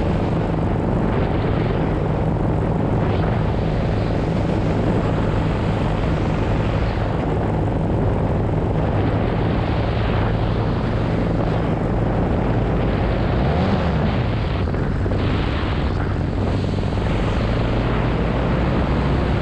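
Paramotor engine and propeller droning steadily in flight, the engine note wavering briefly about two-thirds of the way through.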